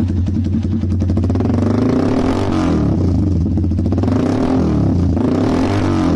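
Single-cylinder motorcycle engine running through an SC Project aftermarket slip-on exhaust, idling with a steady low note. The throttle is blipped twice, about two and four and a half seconds in, so the exhaust note rises and falls each time.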